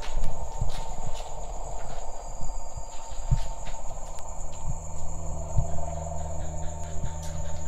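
Crickets chirring steadily at night, a constant high-pitched trill, with occasional footsteps and knocks scattered through it.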